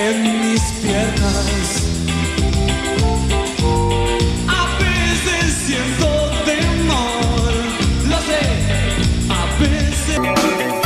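Spanish-language rock song playing, with singing over a steady drum and bass beat; near the end the music cuts over to a different song.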